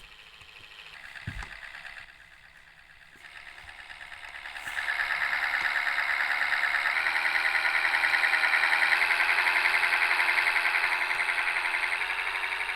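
MAZ-105 city bus running while riding along, its noise swelling about four seconds in and staying loud with a fast, even pulsing.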